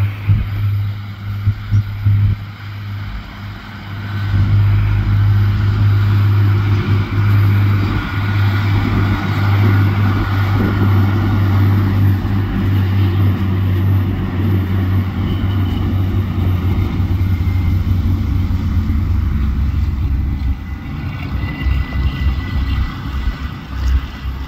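Diesel multiple-unit passenger train passing close by: a steady low engine drone with rolling wheel and rail noise. It grows louder about four seconds in and eases off near the end.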